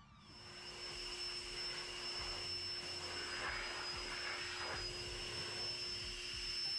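Electric car-drying blower running: a steady high whine over rushing air as it blows water off the car. It builds up over the first second and then holds steady.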